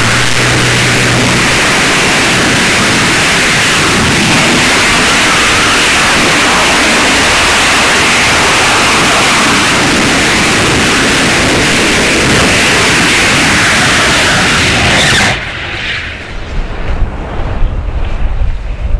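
Copenhagen Suborbitals TM65 liquid-oxygen/ethanol rocket engine firing on a static test stand: a steady, loud roar. About fifteen seconds in it cuts off suddenly at engine shutdown, leaving an uneven, gusty rumble.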